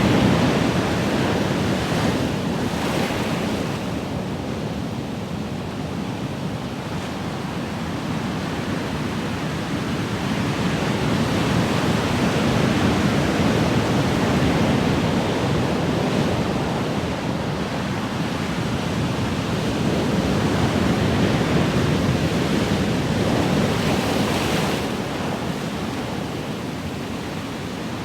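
Ocean surf: a continuous wash of waves that swells and eases slowly every several seconds, with a brief brighter hiss of water rushing twice.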